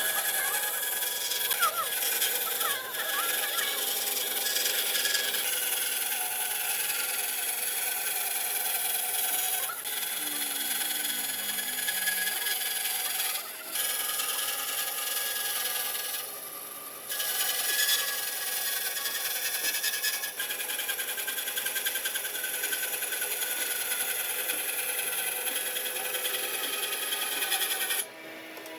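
Power tools working wood: a steady abrasive grinding with a ringing whine, cut off briefly a few times.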